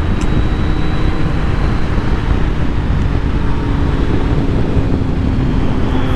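2020 Kawasaki Z900's 948 cc inline-four engine running at a steady cruise, its note holding nearly even, under heavy wind noise on the microphone from riding at speed.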